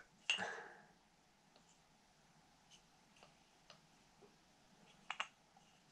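Wooden kendama parts clacking and tapping together as the kendama is handled: a short ringing clack just after the start, scattered faint clicks, and a sharper double click near the end.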